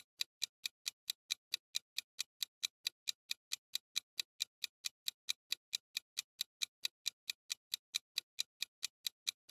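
Countdown timer sound effect: a steady, even ticking at about four to five ticks a second, counting down the time left to answer.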